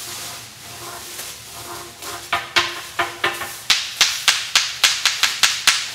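Crumpled paper rustling, then a run of sharp strikes on custom-made ceramic percussion instruments, each with a short pitched ring, starting about two seconds in at about three a second and quickening to about four a second.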